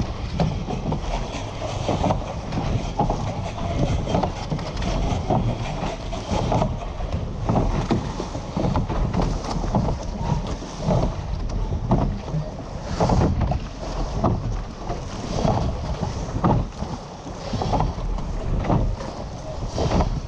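Wind buffeting the microphone and water rushing past the hull of a surf boat being rowed at race pace, with repeated thuds about once a second.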